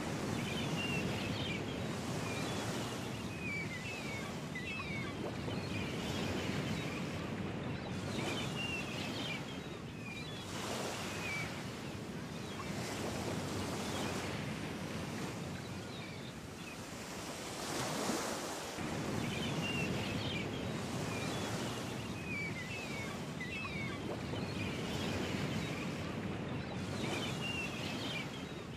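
Ocean surf breaking and washing over rocks, a steady rush that swells and ebbs every few seconds, with short high chirps scattered through it.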